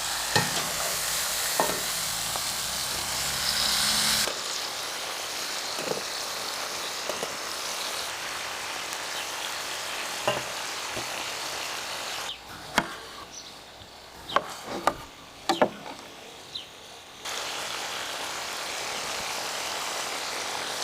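Food sizzling in a cauldron over a campfire, a steady hiss with scattered sharp clicks and knocks. The sound changes abruptly about four seconds in, and drops quieter for a few seconds past the middle, where several sharp clicks stand out.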